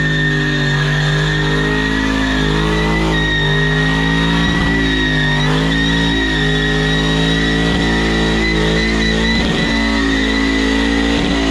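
Car engine held at high revs during a burnout, the revs wavering slightly, over a steady high-pitched squeal of the tires spinning on concrete.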